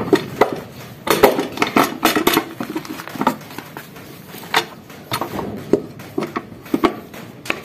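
Hard plastic CVT cover of a Honda Vario 150 scooter being pushed and seated onto the transmission casing by hand, giving a run of clicks and knocks. They are densest about one to two and a half seconds in and scattered after that.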